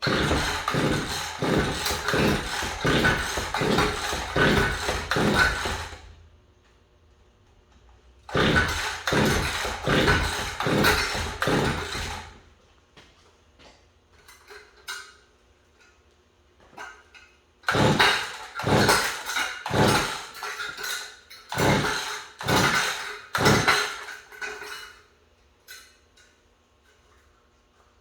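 Small gasoline engine being cranked over in four attempts, each a run of rhythmic chuffs a few per second, that stop without the engine catching and running. It is trying to start on a freshly cleaned spark plug and a little gas poured in, with the air filter off.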